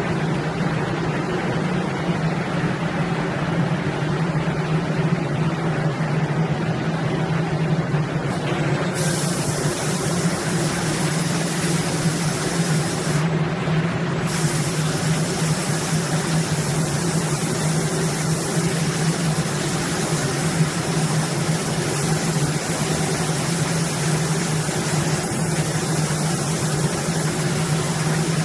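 Steady machine hum and rushing noise of a spray-painting robot cell. Over it, the high air hiss of the robot's spray gun starts about a third of the way in, cuts out for about a second near the middle, then runs on.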